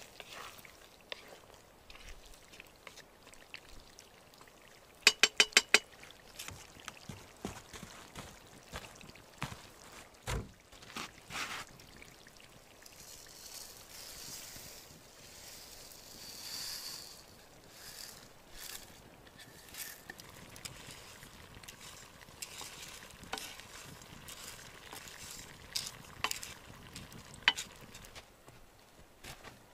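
Cooking over an open campfire: a spoon stirring meat in a pot, with a quick run of five sharp taps about five seconds in, then dry rice poured into the pot with a hissing rustle in the middle.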